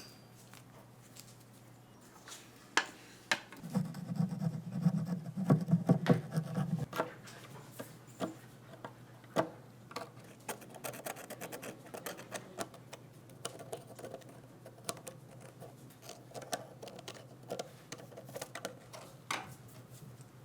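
Hand work on an old pistol: irregular small clicks and knocks of metal parts being handled, with scratching and rubbing, densest and loudest from about four to seven seconds in.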